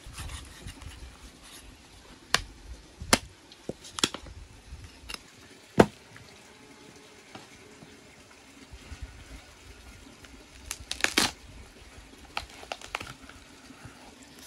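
Raw meat being cut and torn from a split bison head: wet, sticky squelching of flesh pulled apart by hand, with sharp clicks and knocks of the knife against bone and the wooden block, the loudest about six seconds in and a quick cluster around eleven seconds.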